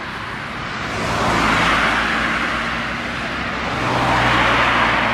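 Two cars passing one after the other on the road alongside, each heard as a swelling and fading rush of tyre and road noise, about two and a half seconds apart.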